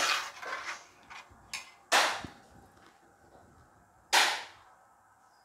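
A steel ladle clinking against the rim of a brass uruli of payasam: three sharp metallic clinks about two seconds apart, each ringing briefly, with a few fainter taps between.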